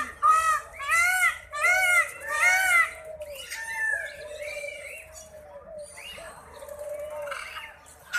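Birds calling: a quick series of about four or five loud, arching calls in the first three seconds, then softer, mixed calls.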